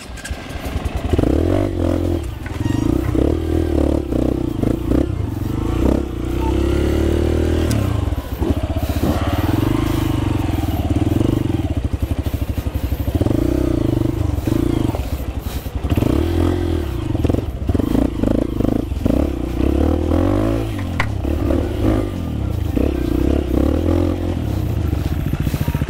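Dirt bike engine ridden slowly over a steep, rocky trail, revving in short bursts of one to two seconds as the throttle is worked on and off. Occasional knocks and clatter come from the bike over the rocks.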